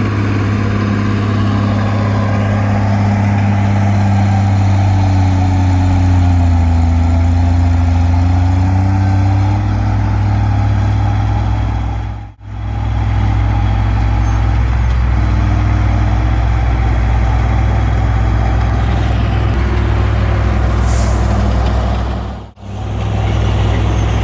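Komatsu D20P bulldozer's diesel engine running steadily under load, its pitch sagging and recovering about a quarter of the way in. The sound drops out briefly twice, about halfway and near the end.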